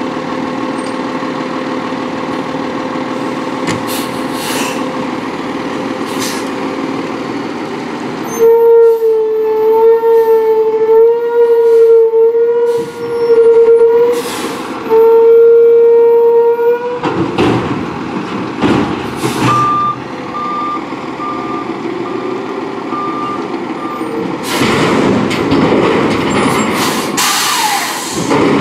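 CCC LET2 front-loader garbage truck running at idle, then revved hard for about eight seconds with a loud steady whine, briefly broken twice, typical of the engine driving the packer's hydraulics. After it drops back, the reversing alarm beeps for about four seconds, and a loud hiss with a few clanks comes near the end.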